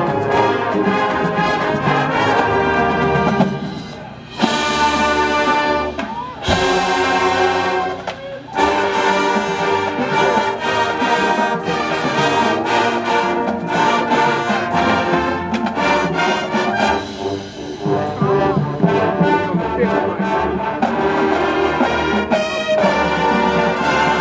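High school marching band playing, with the brass holding loud sustained chords. Just before four seconds in the music briefly drops, followed by two bright, hissing crashes that swell and fade over the next few seconds before the full band comes back in.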